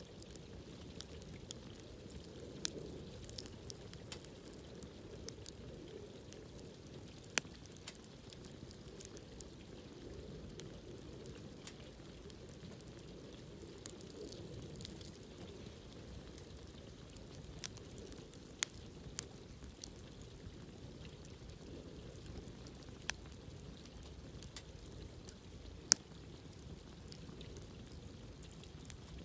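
Wood campfire burning: a low steady flame rumble with scattered sharp crackles and pops a few seconds apart, the loudest pop near the end.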